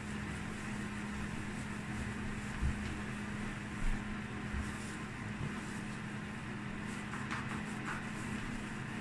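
Steady machine hum with a constant low tone, broken by two soft low thumps about three and four seconds in and a few faint crinkles near the end.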